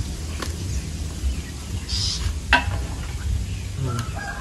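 Chickens clucking, with a rooster beginning a long crow near the end, over a steady low rumble and a few light clicks.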